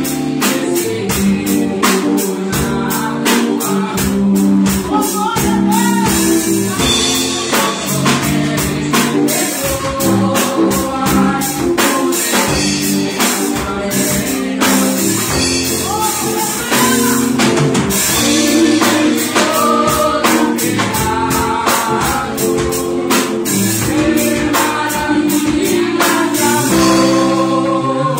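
Live gospel worship music: a woman singing into a microphone over a band with a steady drum beat, amplified through the hall's speakers.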